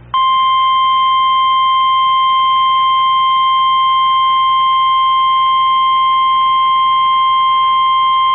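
NOAA Weather Radio 1050 Hz warning alarm tone: a single loud, steady pitch switching on just after the start, received over a weather radio. It is the attention signal that announces a warning, here a tornado warning, is about to be read.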